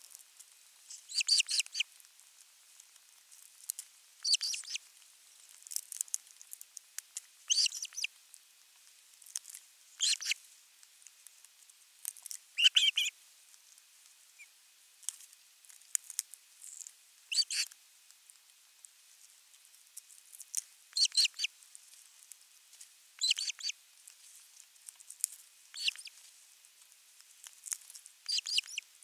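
Ospreys giving short, high chirping calls in brief runs, one burst every two seconds or so.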